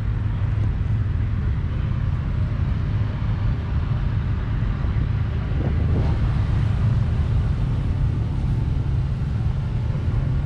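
A steady low rumble of an engine running.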